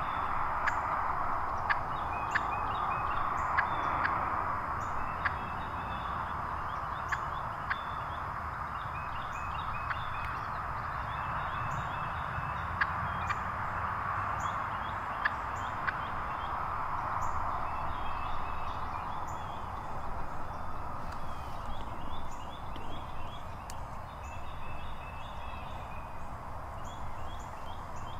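Early-morning field ambience: small songbirds chirp over a steady hiss, with scattered sharp clicks and wild turkeys calling now and then.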